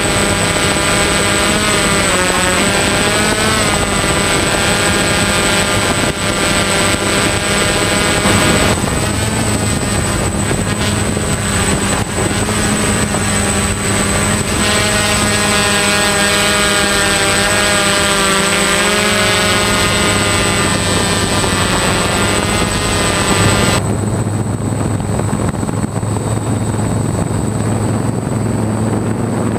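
DJI F550 Flame Wheel hexacopter's six electric motors and propellers whining in flight, several pitches rising, falling and beating against each other as the motor speeds change. About 24 s in, the higher part of the whine drops away and a lower hum remains.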